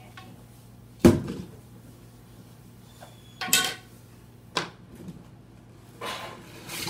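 A loud thump about a second in, followed by a few lighter knocks on a cardboard box and the rustle of its flaps being pulled open near the end.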